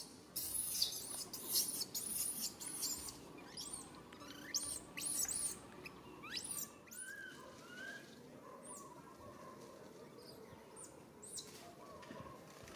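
High-pitched animal calls: a run of short, squeaky chirps and rising squeals, thick in the first few seconds and then sparser.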